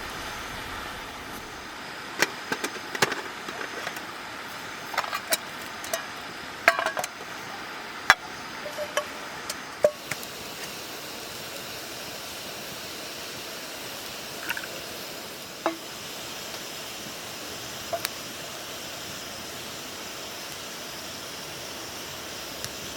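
Light metal clinks and knocks of camp cookware being handled, several in quick succession over the first half and a few isolated ones later, over a steady background noise.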